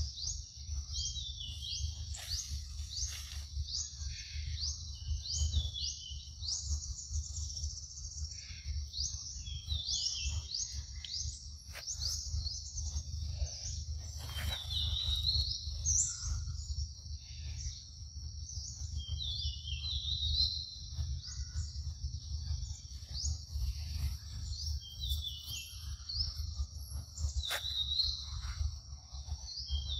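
Forest ambience: a steady high-pitched insect drone with quick rising chirps repeating every fraction of a second, and birds calling in short falling notes, over a steady low rumble.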